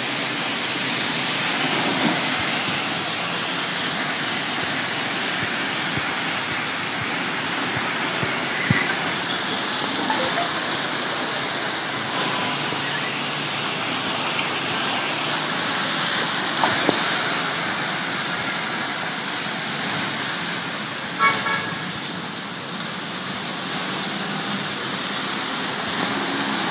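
Heavy rain pouring steadily onto a flooded road, with motor traffic passing through the water. A short vehicle horn toots about three quarters of the way in.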